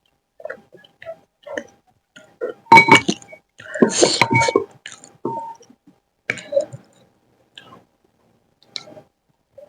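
Close-up eating noises: chewing and mouth sounds of someone eating noodles and fries, with clinks of a utensil against a dish. The bursts come irregularly, loudest a few seconds in, with short quiet gaps between.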